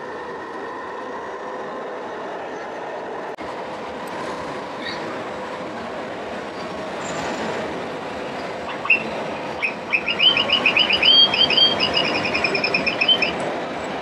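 Steady din of a busy exhibition hall with model trucks running. From about nine seconds in, a rapid run of short, high squeaky chirps lasts some four seconds.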